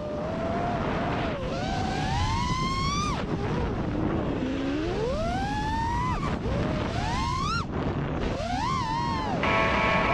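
FPV freestyle quadcopter's brushless motors and propellers whining, the pitch swooping up and down with the throttle; several steep climbs that cut off sharply. A steady cluster of tones joins near the end.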